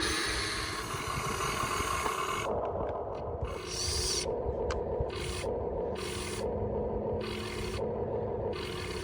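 Radio-controlled hydraulic excavator working: its pump motor hums steadily while a harsher grinding hiss cuts in and out every half second to a second from about two seconds in, as the arm is moved in short strokes.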